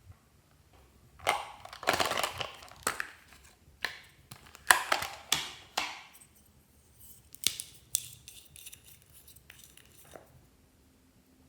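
Glossy slime being squished and kneaded by hand, crackling and popping in several bursts, the loudest a few seconds in.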